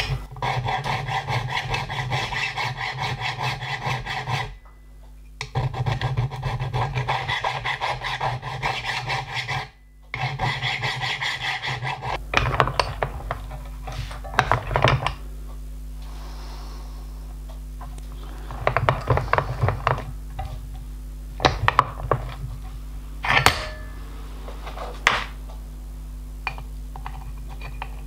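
Hand file rasping on a small steel part clamped in a bench vice, in a quick, even run of strokes with two short pauses. The filing stops after about twelve seconds. Scattered metallic clicks and scrapes follow as the vice is worked and the part is repositioned.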